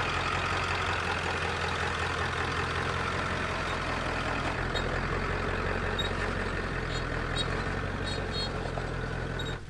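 Ford F350's 7.3-litre Power Stroke turbo-diesel V8 running low and steady as the truck crawls slowly past over the rocky trail.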